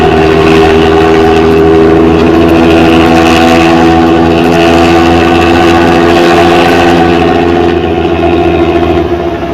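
Diesel bus engine running steadily through a loud modified 'ngorok' (snoring) exhaust, holding an even pitch, then easing off slightly near the end.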